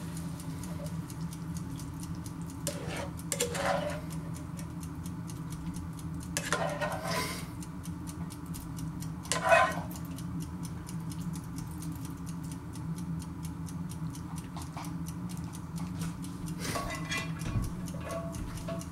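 Steady clock-like ticking over a low hum, with a few clinks and scrapes of a frying pan and utensil as cooked scallops and chorizo are tipped into a serving bowl. The loudest is a sharp clink about nine and a half seconds in.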